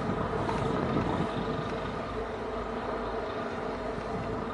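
Tugboat's diesel engine running with a steady drone as it passes.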